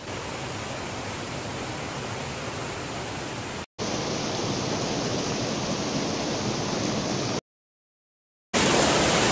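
Steady rush of a mountain stream. It breaks off for an instant a little under four seconds in, goes silent for about a second near the end, then comes back louder.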